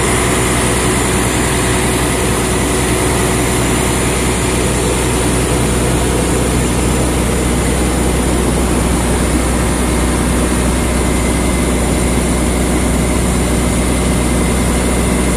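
Crawler excavator's diesel engine running steadily.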